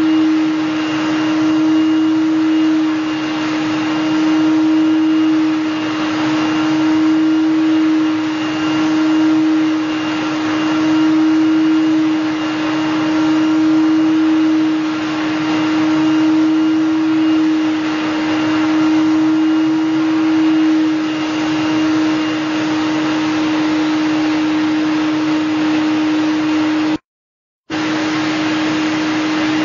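Vacuum cleaner running with a steady, loud hum while its hose nozzle is drawn over a cat's fur, the level gently swelling and easing as the nozzle moves. The sound cuts out for about half a second near the end, then resumes.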